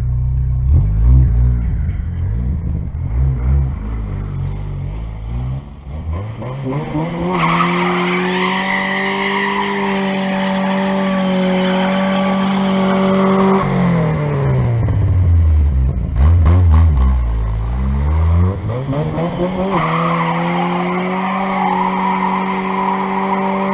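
A 2000 Pontiac Sunfire's four-cylinder engine doing a burnout: after a low rumble it revs up about six seconds in and holds at high revs with the tyres spinning and squealing, drops back about midway, then revs up and holds high again near the end.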